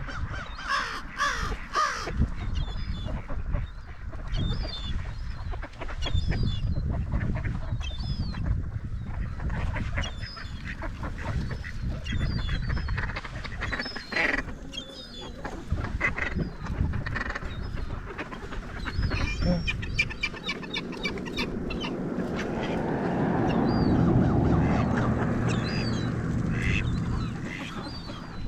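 A flock of mallard ducks quacking and calling, many short overlapping calls. A low rushing rumble swells up about two-thirds of the way through, loudest a few seconds before the end, then fades.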